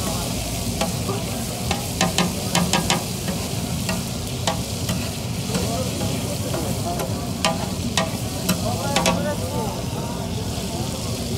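Liver and tomato frying on a large flat steel griddle, sizzling steadily, while a metal spatula scrapes and clinks against the griddle in short clusters of strokes.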